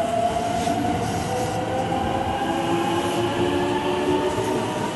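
Electric multiple-unit commuter train pulling away from the platform. Its motors' whine rises steadily in pitch as it accelerates, over the rumble of the wheels on the rails.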